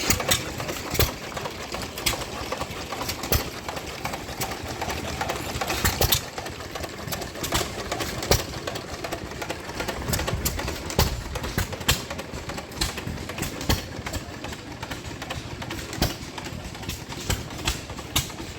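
Antique hit-and-miss gas engines running, firing in sharp bangs at irregular intervals over a steady mechanical din.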